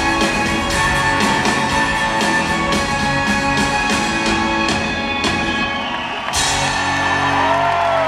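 Live rock band playing: drum kit, electric guitars, violin and keyboards. The drum beat stops about six seconds in on a final cymbal crash, and the chord rings on with sliding notes as the song ends.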